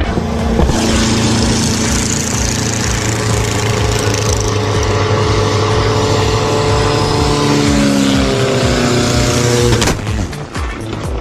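Loud engine noise: a steady hum with a dense rush over it and a low rhythmic pulsing, a few of its tones slowly dropping in pitch, cut off suddenly about ten seconds in.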